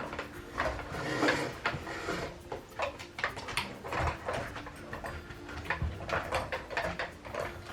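A husky working at a dog treat puzzle, with irregular clicks and knocks of the puzzle's lids and sliding parts being shoved about.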